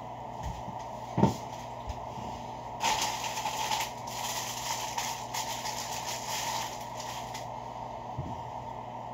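Paper wrapper of a McDonald's sausage muffin crinkling as it is unwrapped, for several seconds from about three seconds in. A single thump about a second in, over a steady background hum.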